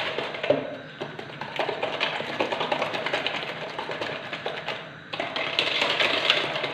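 Wire whisk beating eggs and sugar in a plastic measuring jug: a fast, continuous clatter of the whisk's wires ticking against the jug, a little louder near the end.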